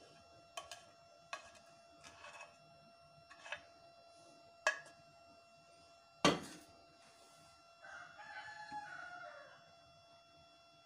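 A steel cooking pot clinks and knocks as it is tipped and tapped out over a metal cake tin, a string of sharp knocks with the loudest about six seconds in. About eight seconds in, a rooster crows once for about a second and a half.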